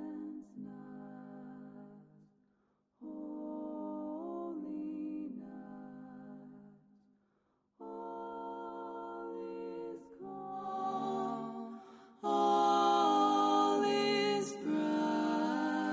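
Slow, soft music of held, voice-like chords in phrases a few seconds long, separated by short pauses; about twelve seconds in it becomes louder and fuller.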